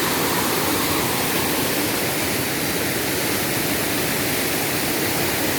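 Waterfall: water falling and rushing in a steady, even roar of noise.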